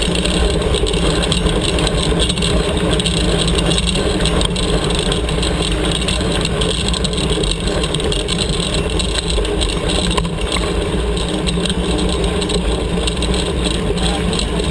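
Steady wind rumble and tyre noise on a camera mounted to a tandem mountain bike riding a dirt trail at race pace.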